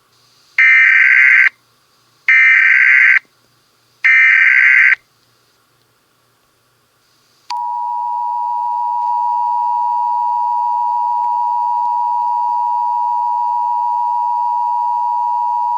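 Emergency Alert System tones: three short bursts of screechy SAME digital header data, then the two-tone EAS attention signal, a steady shrill dual tone that starts suddenly and is held for about eight seconds. Together they signal the start of a new emergency alert message.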